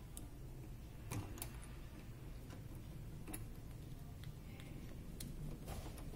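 Faint, irregularly spaced clicks and taps of banana-plug patch cords being handled and pushed into the sockets of a digital IC trainer board.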